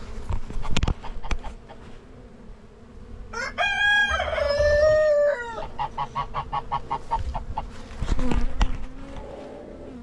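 A rooster crows once, a stepped cock-a-doodle-doo lasting about two seconds, starting a little over three seconds in. A quick even run of chicken clucks follows. A few sharp knocks come near the start, and a loud thump comes about eight seconds in.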